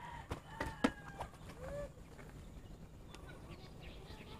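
Faint bird calls: a few short chirps and whistles, with some light clicks, over a quiet background.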